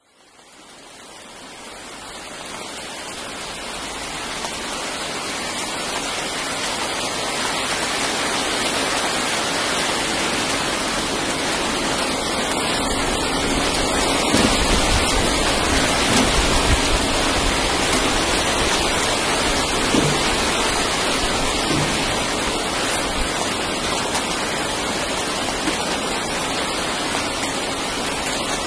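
Steady hiss of rain falling, fading in over the first several seconds. A low rumble swells briefly about halfway through.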